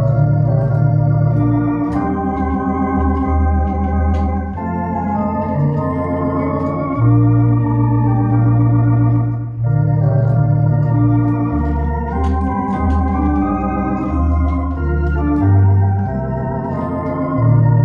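Two-manual electronic organ playing a slow piece in sustained chords, with pedalboard bass notes stepping beneath the harmony.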